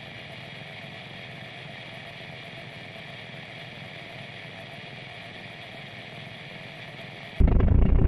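A faint steady hum and hiss, then about seven seconds in a sudden loud burst of harsh static that carries on to the end, an analogue-TV interference effect.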